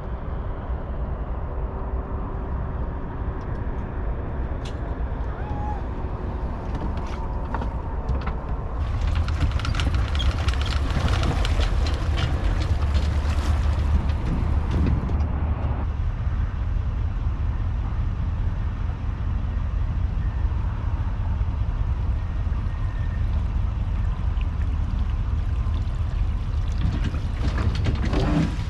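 Engines idling in a low, steady rumble as the boat is brought to its trailer, with a louder, noisier stretch about nine seconds in that eases off near fifteen seconds.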